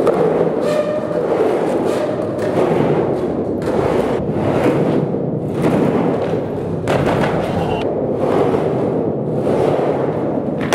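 Skateboard wheels rolling and carving on the curved walls of a large pipe, a continuous echoing rumble that surges about once a second as the board swings up one wall and back down.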